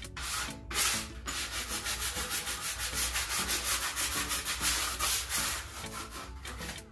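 Sheet of 150-grit sandpaper rubbed by hand over an unfinished birch butcher-block countertop, in quick, even back-and-forth strokes.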